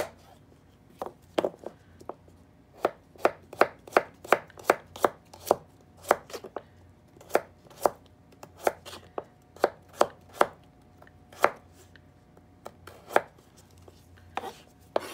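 Kitchen knife slicing a carrot on a plastic cutting board: a run of sharp, uneven chops, roughly two to three a second, thinning out near the end.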